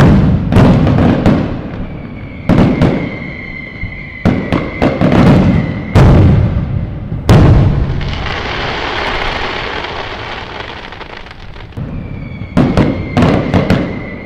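Fireworks going off: a rapid run of sharp, loud bangs over a steady high whistle, then a long crackling fizz in the middle, then another close cluster of bangs with the whistle near the end.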